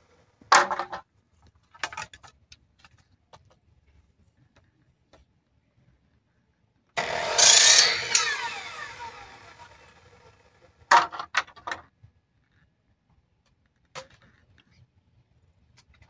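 Electric miter saw starting abruptly about seven seconds in and cutting through a bamboo pole, then the blade spinning down with a falling whine. Sharp knocks come before it as bamboo pieces are handled, and a short clatter of bamboo follows.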